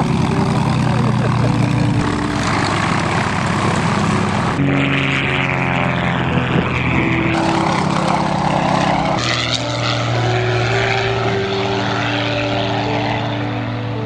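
Piston engines and propellers of small aerobatic aeroplanes droning loudly. The engine note changes abruptly three times, at about four and a half, seven and a half and nine seconds in, as the sound jumps from one aircraft or pass to another.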